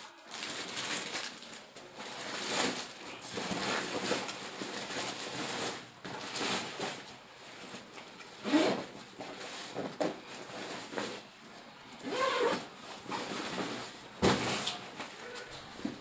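Black plastic wrapping rustling and crinkling as it is handled and pulled off a packed case. It comes in uneven spurts, with louder crackles about eight and a half and fourteen seconds in.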